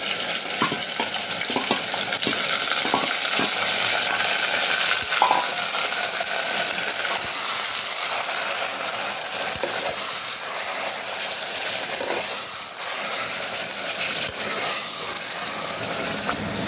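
Marinated mutton sizzling in hot oil in a pressure cooker as it is stirred with a steel ladle, which clinks against the pot now and then.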